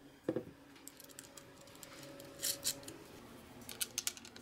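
Hands handling a motor controller and its plastic mounting adapters while fitting screws and nuts: a dull knock just after the start, then a few light, sharp clicks of metal screws against plastic, about two and a half seconds in and again near the end.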